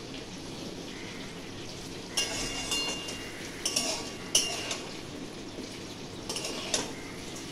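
Onions, long beans, potatoes and chillies frying in a steel wok with a steady sizzle, while a metal spatula scrapes and clinks against the pan in several strokes, starting about two seconds in.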